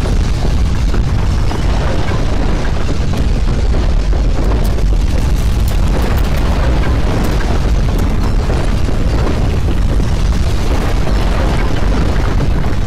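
Continuous deep rumbling with a rough, crackling texture: a sound effect standing for strong earthquake ground shaking.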